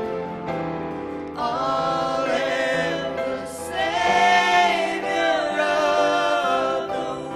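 Live worship band: voices singing long, slowly changing held notes over keyboard and acoustic guitar accompaniment.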